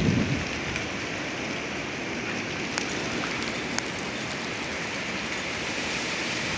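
Strong windstorm wind rushing steadily, with two brief sharp clicks about three and four seconds in.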